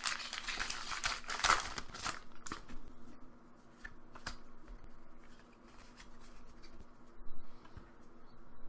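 Foil booster pack wrapper crinkling loudly and tearing open for about the first two seconds, then light rustling and clicks as the trading cards are handled.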